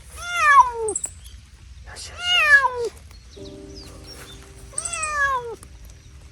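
A cat meowing loudly three times, each long call sliding down in pitch.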